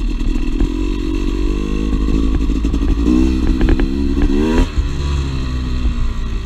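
Two-stroke dirt bike engine running on the trail; about halfway through the revs climb steadily under throttle, then fall away abruptly as the throttle is shut off, with a few sharp clattering knocks while it pulls.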